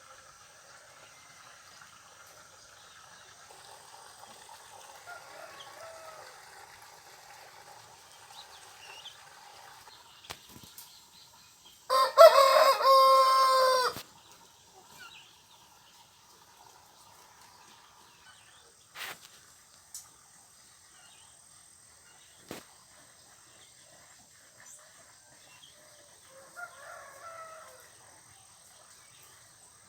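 A rooster crows once, loud and about two seconds long, midway through. Fainter calls and a few sharp clicks come over a quiet steady background.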